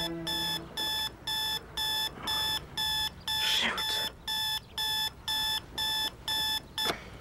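Electronic alarm clock beeping at a steady high pitch, about two beeps a second, waking a sleeper. A brief groan comes midway, and the beeping cuts off near the end as the alarm is switched off.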